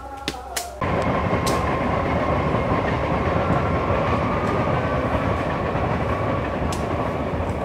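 A couple of sharp knocks, like hoes striking soil, then about a second in a loud steady rumbling noise begins suddenly, with a faint high hum on top, and keeps going.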